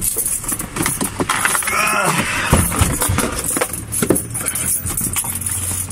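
Keys jangling and rattling as they are handled, a run of small metallic clicks.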